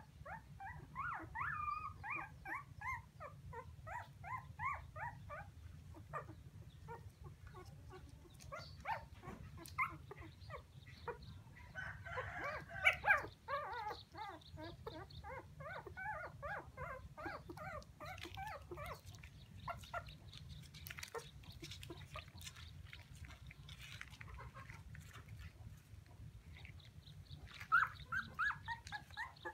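Very young puppy crying: bouts of short, high whines and yelps, loudest about halfway through and again near the end, the crying of a puppy left apart from its mother.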